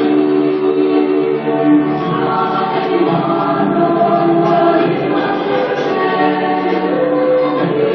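Recorded music with choir singing in long, held notes.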